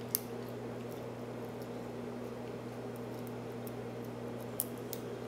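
A few faint sharp clicks of a carbon-steel Peterson Gem hook pick working in the keyway of a Master Lock 930 pin-tumbler padlock, probing for binding pins, one just after the start and one near the end, over a steady low electrical hum.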